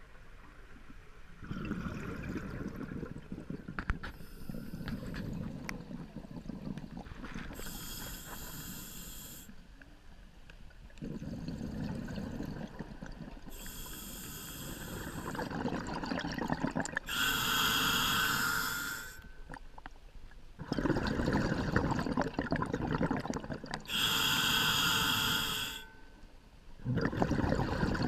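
A scuba diver breathing slowly through a regulator. Each inhalation is a short hiss with a faint whistling tone, and each longer exhalation is a low burble of bubbles venting from the regulator, repeating over several breaths.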